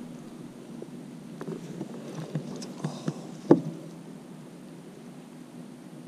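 Handling noises: a few small knocks and clicks as a pike is handled over a rubber-mesh landing net in a kayak, with one louder knock about three and a half seconds in.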